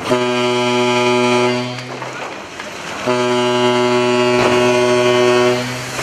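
Ship's horn sounding two long, steady blasts about a second apart, the second a little longer, as a tanker is side-launched off its slipway.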